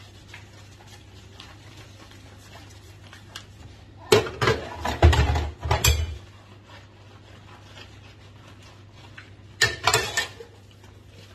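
Steel pots and dishes clattering as they are washed and set into a dish basket, in two bursts: about four seconds in and again near the end. A faint steady low hum underneath.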